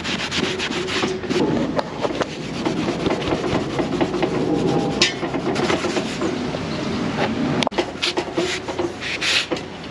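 Rapid back-and-forth scrubbing with an abrasive sponge pad on car seat leather and trim, a continuous rasping rub, as the solvent-wet surface is worked to strip off the factory protective coating.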